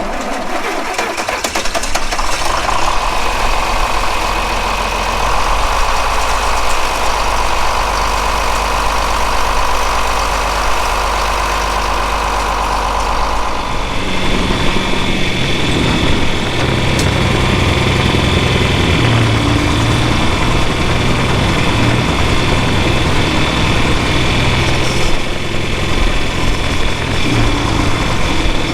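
A farm vehicle's engine running steadily. About fourteen seconds in, the sound changes abruptly to a deeper, lower engine note.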